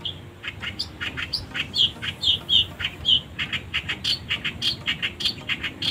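A bird calling in a fast series of short, high, sharp notes, about five a second, some sliding in pitch.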